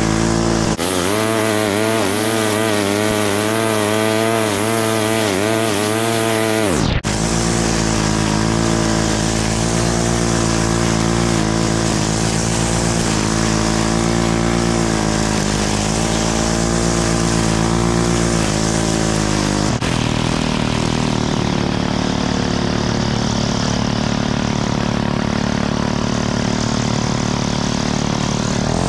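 Stihl gas string trimmer running at high throttle while cutting grass, its engine pitch wavering up and down for the first several seconds. An abrupt break comes about seven seconds in, and it runs steadier after that.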